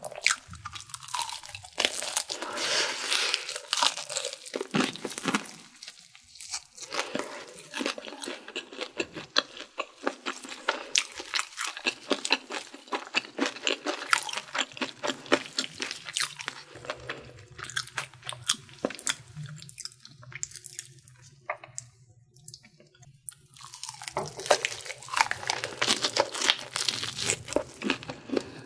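Close-miked crunching and chewing of crispy Korean fried chicken: a dense run of sharp crackles as the coating is bitten and chewed, easing briefly about two-thirds through before a fresh run of crunching.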